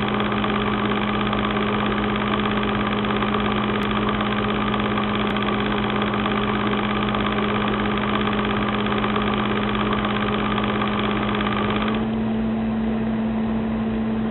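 A machine running with a steady hum on one low pitch, with many steady overtones above it. About twelve seconds in, the upper part of the sound thins out and the hum steps slightly higher.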